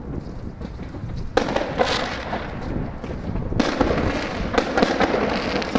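Fireworks going off, bursting and crackling with many sharp pops over a low steady rumble. A first burst of crackle starts suddenly about a second and a half in, and a second, stronger one joins about three and a half seconds in.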